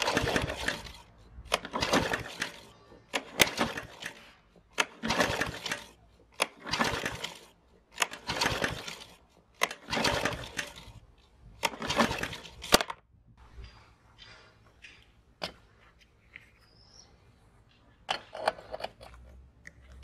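Recoil starter of a Ryobi RLM140SP mower's 140cc Subaru OHV engine pulled about eight times in quick succession, each pull a rasping whirr ending in a sharp click, then once more near the end. The engine turns over on good compression but never fires: it has no spark.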